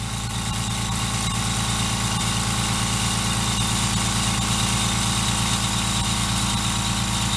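Fortress 2-gallon air compressor running steadily under load, its pump rapidly building tank pressure back up.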